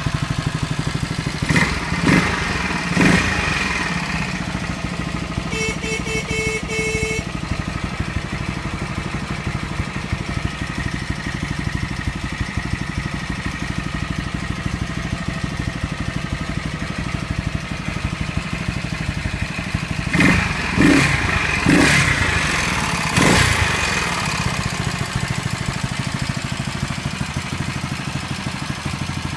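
1972 Aermacchi Harley-Davidson Sprint SS350's horizontal single-cylinder four-stroke engine idling steadily. The throttle is blipped in a few quick revs within the first three seconds, and again in a cluster of about four around twenty seconds in.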